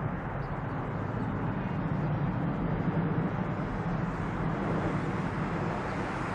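Twin jet engines of a Boeing 767 climbing away after takeoff, heard as a steady distant rumble.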